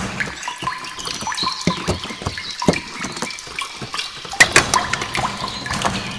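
Water from a hand pump pouring and splashing into a clay pot (matka), with irregular splashes and drips; the sharpest splashes come near the start and about four and a half seconds in.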